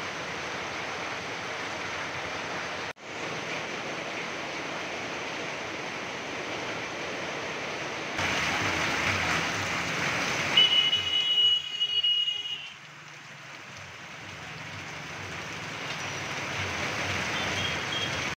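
Heavy rain pouring steadily onto the road. About ten seconds in, a high, steady tone sounds over it for about two seconds.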